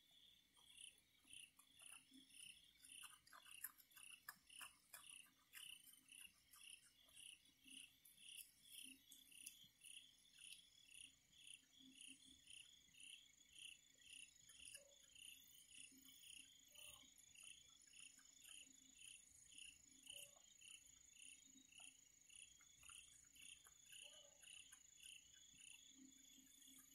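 Crickets chirping in a steady rhythm, about two chirps a second. A higher insect trill sets in about ten seconds in and runs on. A few faint clicks can be heard between about three and five seconds in.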